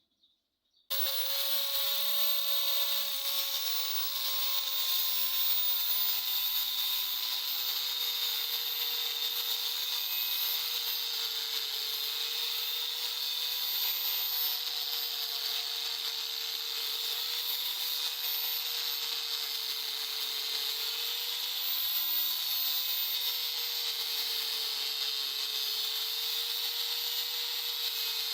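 Power grinder running steadily on steel, a hiss with a slightly wavering whine, starting suddenly about a second in.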